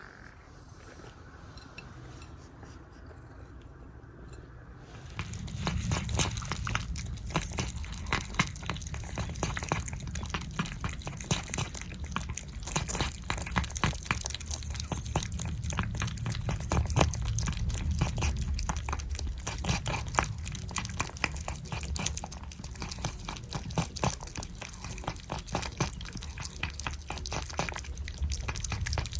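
Several cats licking churu lickable paste treat: a dense, continuous run of wet smacking and lapping clicks that starts about five seconds in.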